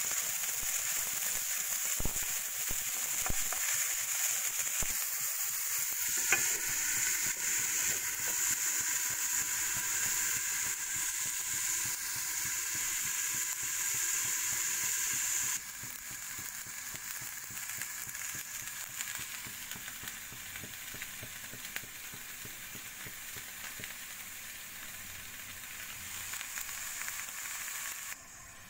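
Chopped green beans sizzling in oil in a nonstick wok, with a few clicks of a wooden spatula stirring them about two and three seconds in. About halfway through the sizzle drops to a quieter, duller hiss as the beans cook under an aluminium lid on low heat.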